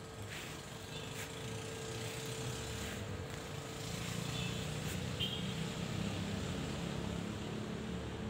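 An engine running, growing louder over the first few seconds and then staying steady, under a constant hum, with a few brief high chirps.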